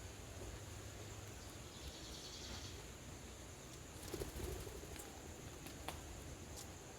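Faint outdoor ambience: a steady hiss and low rumble, a brief high chittering about two seconds in, and a few soft clicks between four and six seconds in.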